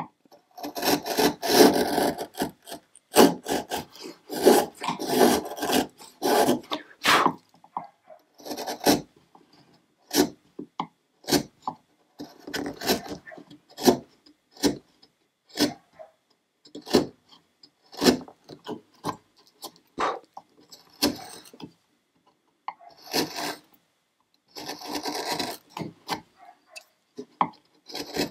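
Hand chisel paring wood, cutting thin shavings along the shoulder of a tenon in short, irregular scraping strokes, with a brief pause past the middle.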